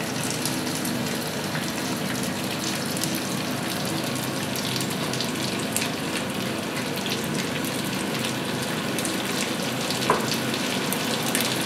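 Pork fat and onion frying in a pan under a layer of sliced raw potatoes: a steady sizzle with fine crackles.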